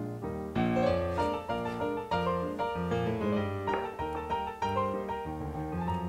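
Background piano music: a gentle line of struck notes and chords, each ringing and fading, with a fuller passage coming in about half a second in.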